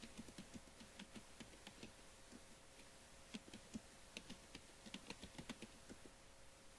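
Faint typing on a computer keyboard: two runs of quick, irregular keystrokes with a short pause between them.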